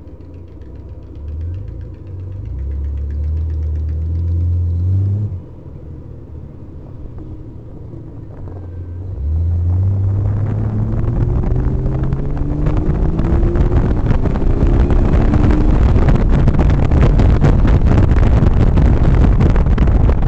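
Car engine heard from a camera mounted on its hood: it revs briefly and drops off about five seconds in, then the car accelerates away, the engine pitch rising, while wind and road noise build into a loud steady rush.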